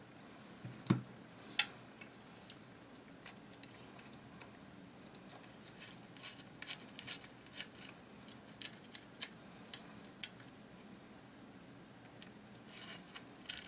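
A hand tool set down on a rubber work mat with a soft thump, then a sharp click. Scattered light clicks and taps follow as small steel rifle parts are picked up and handled.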